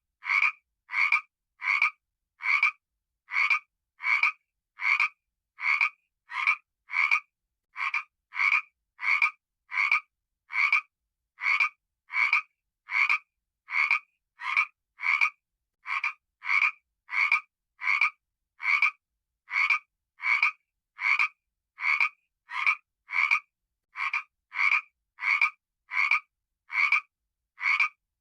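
A frog croaking over and over at an even pace, about three short croaks every two seconds, with silence between them.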